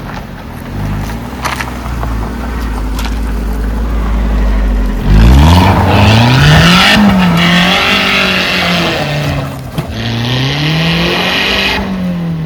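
4x4 SUV engine run hard off-road. It labours low at first, then jumps loud about five seconds in and revs up. It eases off and revs up and down once more near the end, with a loud rushing hiss over the top during both pushes.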